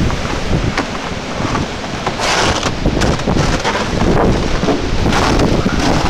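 Storm-force wind gusting through evergreen trees, with heavy wind buffeting on the microphone. The gusts surge with a rushing hiss about two seconds in and again near the end.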